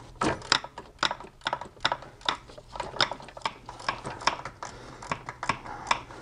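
Socket ratchet clicking in short, uneven runs as a bolt that has just been broken loose is backed out.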